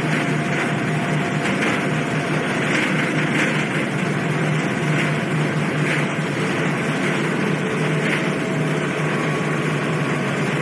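Car ferry under way: a steady low engine hum with a continuous rush of wind and churning wake water on the open deck.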